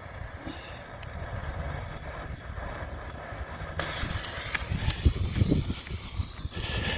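Roman candle fuse lit and hissing, starting about four seconds in, over a steady low rumble.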